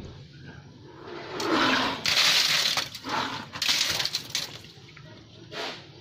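Wet concrete mix with gravel tipped from a bucket into a rebar-lined footing pit, rushing and rattling down in two spells for about three seconds, starting about a second and a half in, with a shorter splash near the end.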